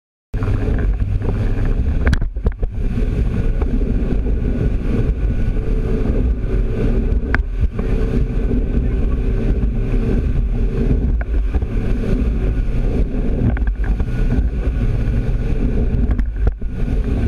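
Motorboat engine running steadily under way, with wind buffeting the microphone. It starts abruptly just after the start.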